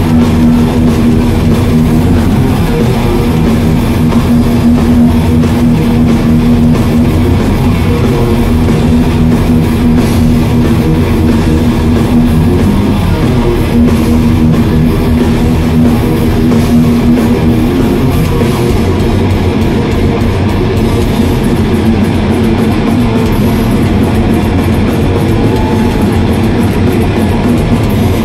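Thrash metal band playing live through a loud PA, heard from within the audience: heavily distorted electric guitars over a drum kit. A long held guitar tone stands out for the first two-thirds, after which the riff changes.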